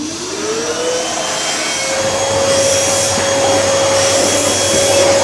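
Neabot P1 Pro pet-grooming vacuum starting up: its motor whine rises in pitch over about the first second, then runs steady with a rushing suction noise.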